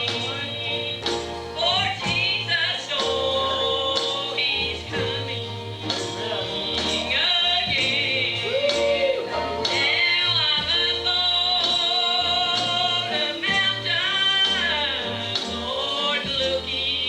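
Live gospel music: a sung melody over a band with stepping bass notes and a steady drum beat.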